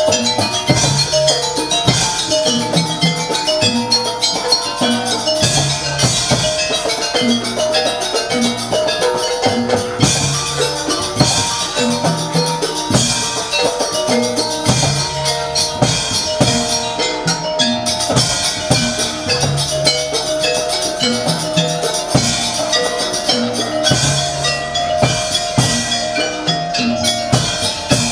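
Live jaranan accompaniment: a Javanese percussion ensemble with kendang drums beating a steady repeating pattern under sustained held melodic tones, played continuously.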